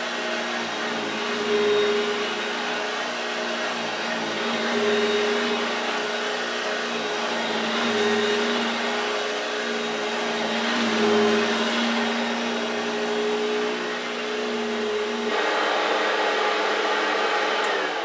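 1969 Hoover Junior 1346 upright vacuum cleaner running: a steady motor hum over a rush of air. About fifteen seconds in, the hum drops out and only the rush of air remains.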